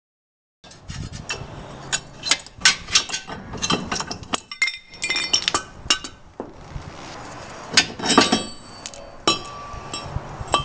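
Irregular sharp metallic clinks and knocks, some ringing briefly, from a ratchet with a 17 mm socket and a removed steel brake caliper bracket and its bolts being handled and set down. The clinks start just under a second in.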